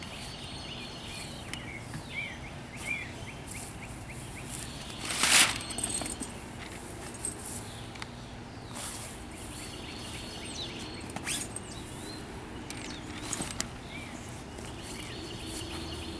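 Birds chirping over a steady outdoor background, with rustling and crinkling of a soft top's vinyl window panel being shaken and handled. The crinkling is loudest about five seconds in.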